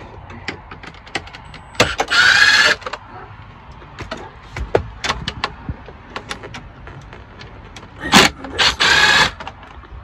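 Cordless drill-driver with a socket extension spinning out dashboard screws in two short whirring bursts, about two seconds in and again near the end. Small clicks and rattles of the bit and screws come in between, with a sharp knock just before the second burst.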